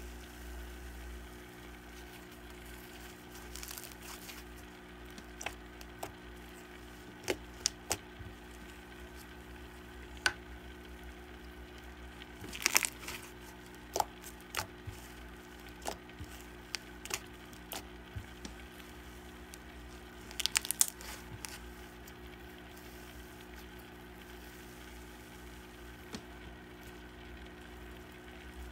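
Green slime mixed with instant snow being squeezed, stretched and pressed by hand, giving scattered sharp pops and a sizzly crackle, with denser bursts of crackling about 13 seconds in and again about 21 seconds in. A steady low hum runs underneath.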